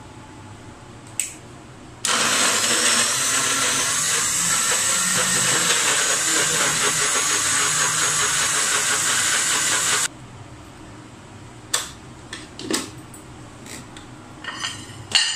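Electric food chopper motor running at full speed for about eight seconds, chopping vegetables in its jar; it starts and stops abruptly. A few short clicks follow as the jar and lid are handled.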